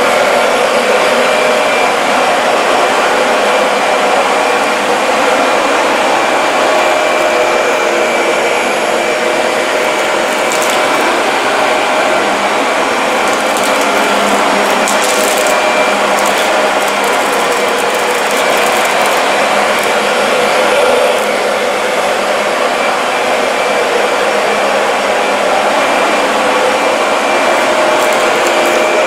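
Dyson DC40 MKII upright ball vacuum running steadily on a dirty rug, a constant motor and airflow noise with a steady whine in it, with a few brief rattles a little before and after the middle.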